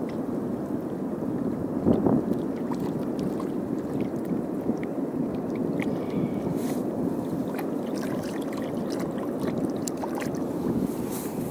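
Mediterranean sea washing against a rocky shore: a steady rushing of water with small splashes and clicks, and one louder surge about two seconds in.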